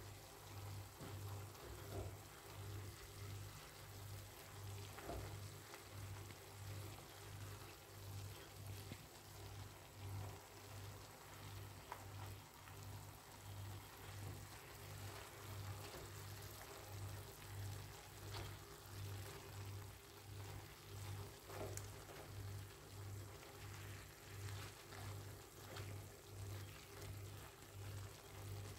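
Beef and vegetables stewing gently in their own juice in a frying pan, giving a faint, even sizzle, with a few soft clicks. A low hum pulses about one and a half times a second throughout.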